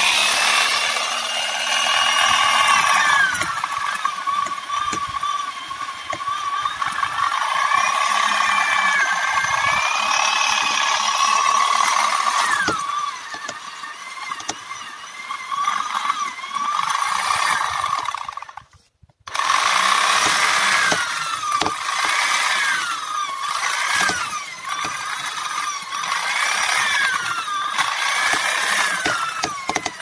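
Small handheld electric chainsaw running and cutting into a tree trunk, its motor whine dipping and rising in pitch as the chain bites into the wood. It stops for a moment a little after halfway through, then starts again and cuts on.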